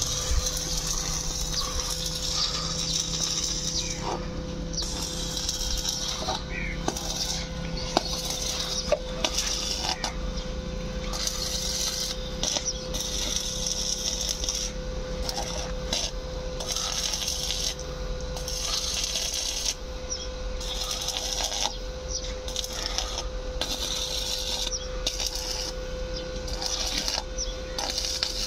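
Stick (arc) welding on a steel pipe frame: the electrode's arc crackles and sizzles in runs of a few seconds, stopping and starting again many times, over a steady hum.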